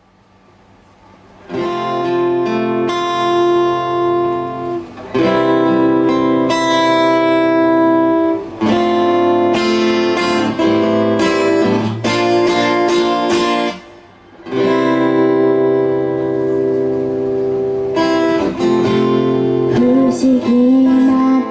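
Acoustic guitar intro: strummed chords that ring on, with a few short breaks between phrases. A woman's voice comes in singing near the end.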